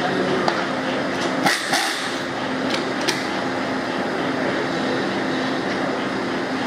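Steady factory-floor machinery noise with a faint hum. It is broken by a few sharp metal clicks and clanks in the first three seconds as the engine is handled and turned over in its assembly fixture.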